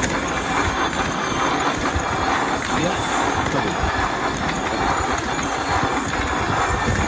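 Belladonna plaster perforating machine running, its gears, chain drive and rollers making a steady, dense clatter.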